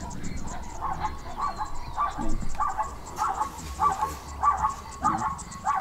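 A series of about nine short, evenly spaced animal calls, roughly one and a half a second, starting about a second in.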